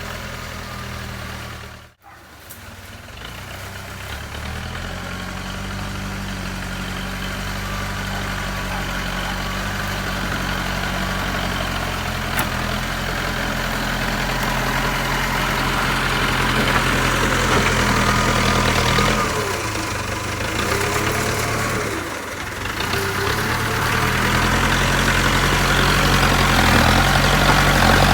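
Diesel engine of a JCB 3CX backhoe loader running steadily, growing gradually louder, with a brief dropout about two seconds in.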